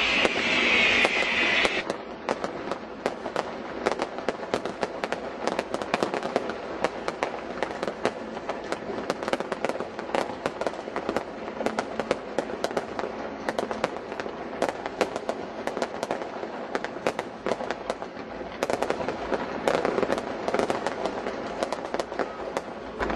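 Fireworks display: a rapid, continuous barrage of bangs, pops and crackles. It is loudest in the first two seconds, then carries on as a dense crackle at a somewhat lower level, swelling again briefly near the end.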